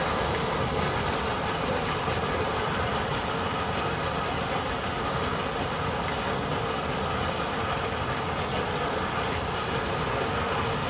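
Steady drone of a swimming-pool filter pump running, with water circulating to drive a suction pool cleaner.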